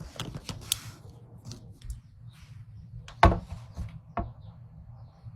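Kitchen handling noises: a few separate knocks and clatters of cookware and utensils, the loudest a little over three seconds in.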